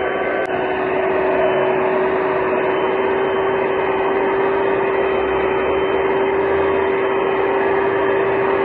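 Electric hand mixer running at a steady speed, its beaters whipping eggs and sugar to a foam in a glass bowl. The motor gives a steady whine.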